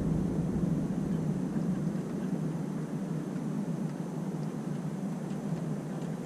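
Thunder rumbling and slowly dying away, its deepest part fading out about a second in, leaving a steady low rumble.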